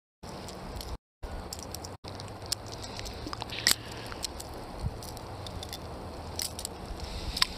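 Steady outdoor noise of river water and light wind, with scattered small clicks and ticks of handling. The sound cuts out completely three times in the first two seconds, dropouts in a lagging live stream.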